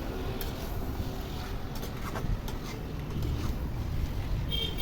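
Chicken pieces sizzling in mustard oil and spice paste in a kadai, with a few sharp clicks and scrapes of a spatula against the pan over a steady low rumble.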